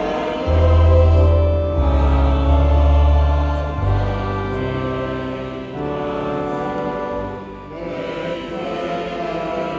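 Hymn sung by a man at a microphone together with a choir, over an accompaniment of deep held bass notes that change every second or two, loudest in the first four seconds.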